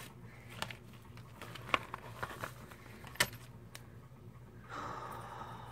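Handling noise from craft-kit items, a clear mesh vinyl zipper pouch and small etched wooden hearts: scattered light clicks and rustles, the sharpest about three seconds in. A soft hiss fills the last second.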